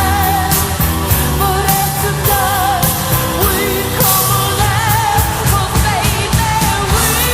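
Rock-pop song with a woman's lead vocal singing over drums, bass and band, with a steady beat.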